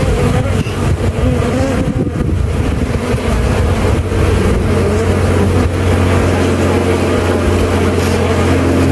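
Many honeybees buzzing around the opened hive, a loud, steady drone.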